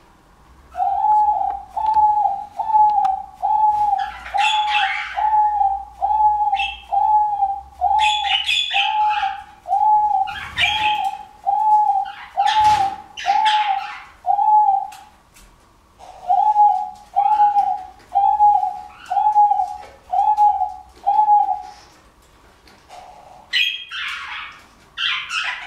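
Male diamond dove cooing: a long, even run of short coos, about three every two seconds, that breaks off for a second about halfway through and then resumes. Brief rustling noises come and go over the coos and again after they stop.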